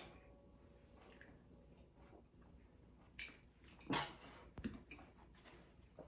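Faint handling noises: a few soft knocks and clicks, the loudest about four seconds in.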